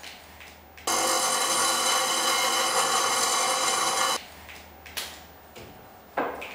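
Bench grinder grinding a piece of steel: a loud, steady ringing whine lasting about three seconds that cuts off suddenly. Before and after it, light knocks and taps of kitchen work at a table.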